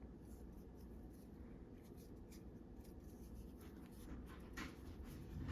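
Faint rustling and light scratching of yarn being pulled through a loop with a crochet hook, a few soft ticks over a low room hum.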